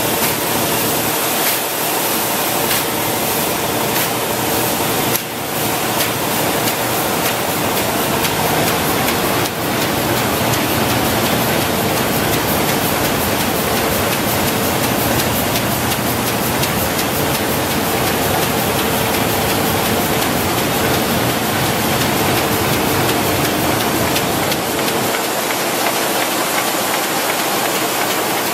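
RYOBI 758P eight-colour sheetfed offset press running: a steady, loud mechanical din of fast, even clatter and hiss from the feeder and printing units as sheets are fed.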